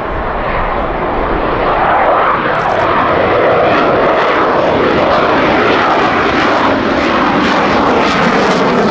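F-16 Fighting Falcon fighter jet passing overhead in a display, its single jet engine giving a loud, ear-splitting, steady rush of noise that swells a little about two seconds in.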